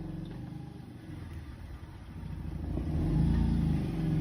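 Off-road 4x4's engine working at low speed while crawling over rocks in reverse, then revving up and getting louder about two and a half seconds in.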